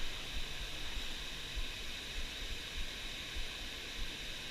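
Steady rush of flowing creek water, with irregular low thumps on the microphone.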